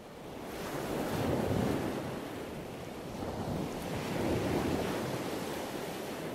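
Ocean waves washing onto a shore, swelling twice: once about a second and a half in and again around four and a half seconds in.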